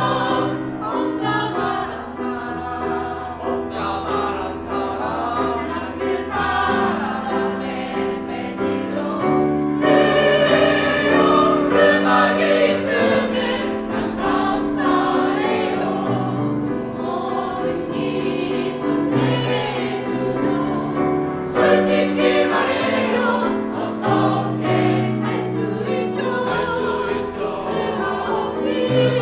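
A choir singing a song with instrumental accompaniment holding sustained low notes underneath.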